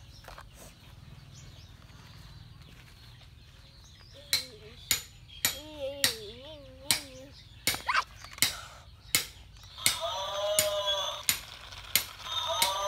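Battery-powered toy pig playing an electronic tune. It starts about four seconds in: a steady clicking beat about two a second, first with warbling tones, then with a short synthetic phrase repeated twice near the end.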